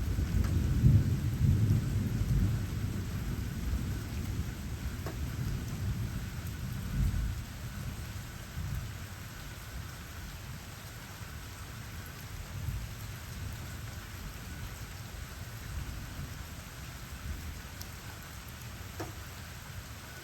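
Steady rain falling, with a low rumble that is loudest in the first few seconds and dies down by about seven seconds in.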